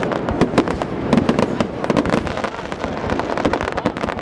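Fireworks display in full barrage: a dense, unbroken run of sharp cracks and bangs, several a second.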